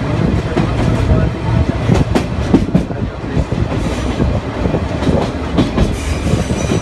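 Sagano Romantic Train carriage rolling along the track, heard from aboard: a steady low rumble with irregular clicks and knocks from the wheels running over the rails.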